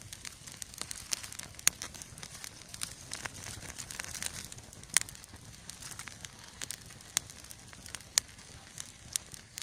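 Campfire burning damp wood, crackling with sharp irregular pops over a soft hiss that swells for a while in the middle.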